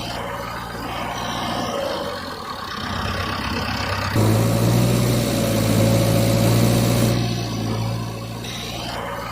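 Motor-vehicle engine sound running steadily at idle, with abrupt changes about four and seven seconds in, where it gets louder and then drops back.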